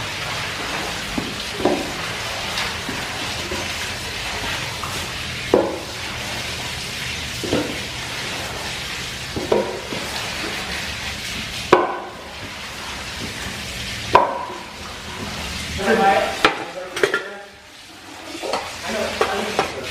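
Water from a garden hose splashing and running while brooms and a squeegee scrape and push flood mud and water across the floor. The water hiss is steady, with scrapes and knocks every couple of seconds, a few louder ones about halfway and near the end.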